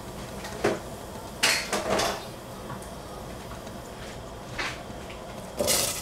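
Kitchen dishes clattering: several clinks and knocks, the loudest cluster about a second and a half in. Near the end comes a loud rattle as blueberries are tipped from a bowl into an empty stainless steel saucepan.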